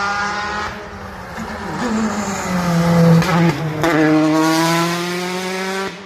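Rally car engines at high revs passing close by on a stage, the pitch rising and then dropping with gear changes. The engine note changes abruptly about four seconds in.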